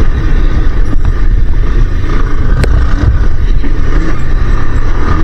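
Motorcycle riding along, its engine and road noise a loud, steady low rumble, with a single brief click about two and a half seconds in.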